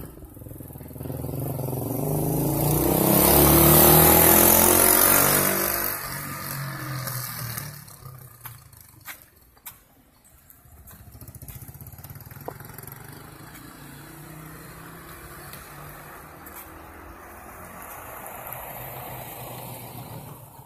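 A motor vehicle drives past close by, loudest about four seconds in, its engine note falling in pitch as it moves away. Fainter street traffic noise follows, with a few light clicks.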